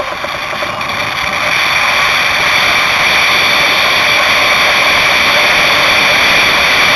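Steady rushing roar of a vehicle moving fast over a dirt track, building over the first two seconds and then holding level.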